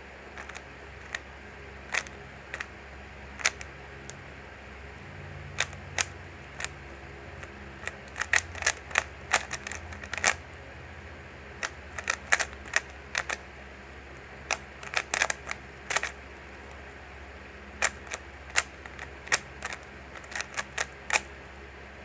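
3x3 Rubik's cube being turned by hand during a solve: irregular sharp clicks and clacks as the layers are twisted, sometimes in quick runs of several, with short pauses between, over a faint steady low hum.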